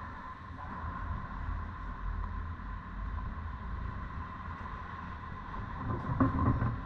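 Steady low rumble of highway traffic, with a faint steady tone running through it. About six seconds in come a few close knocks and rustles as the camera is handled.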